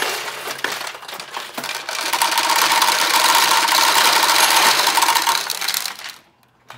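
Vintage pachinko machine paying out after a ball lands in a winning pocket: steel balls rattle in, then pour into the tray in a loud, dense clatter for about three seconds, with a steady ring under it. The clatter stops suddenly near the end.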